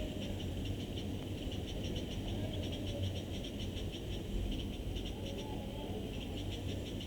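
Small animals calling in rapid high pulsed trills that come and go in bursts, over a steady low hum.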